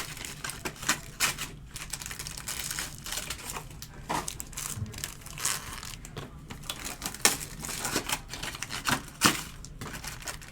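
Plastic wrapping crinkling and rustling, with irregular sharp clicks and taps, as trading card packs and boxes are handled.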